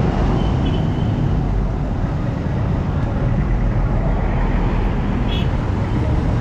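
Busy city street ambience: a steady din of road traffic passing, with voices in the background.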